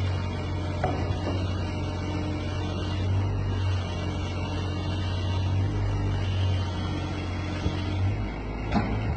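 Heavy vehicle's engine running steadily at a low drone, with a couple of brief knocks, one about a second in and one near the end.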